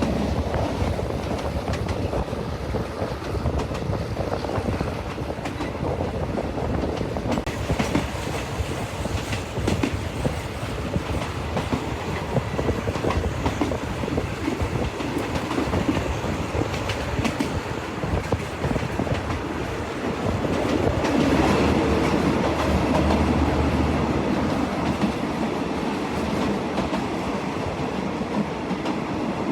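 Train running along the track, its wheels clattering steadily over the rails with a continuous clickety-clack. The rumble gets louder for a few seconds about two-thirds of the way through.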